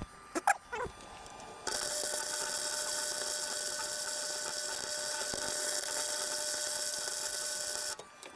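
Wire-feed welder laying a bead on a rear differential: a steady hissing sizzle that starts about two seconds in and cuts off abruptly near the end. It is preceded by a few brief sharp, squeaky sounds.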